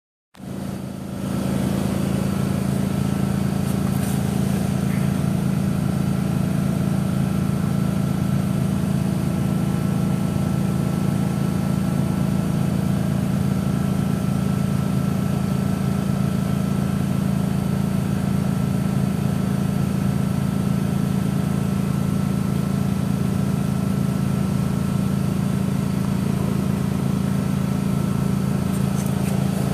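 Steady mechanical hum of running machinery: a deep, unchanging drone with a faint higher whine above it.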